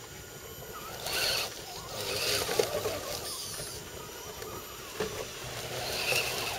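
RC scale crawler trucks driving over a loose dirt mound, with short bursts of crunching and scraping as their tyres dig into soil and dry leaves several times.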